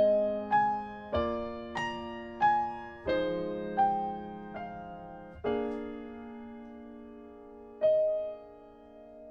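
Piano playing a slow melody of single notes over sustained chords, a tune built from the digits of pi. Near the end a last note rings and fades.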